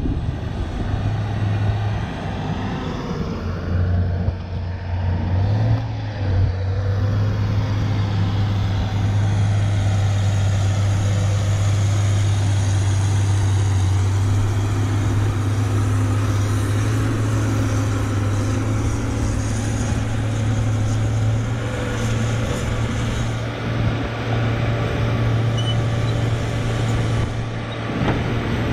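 Diesel engine of heavy tracked earthmoving machinery running steadily under load, a continuous low drone with no pauses.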